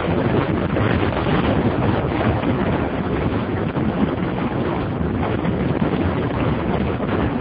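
Steady wind rush buffeting the microphone of a camera on a motorcycle riding at road speed. The engine is lost under it.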